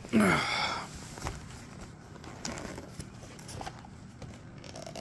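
Boxes and cardboard packaging being handled: a short squeaky scrape that falls in pitch just after the start, then a few light knocks and rustles.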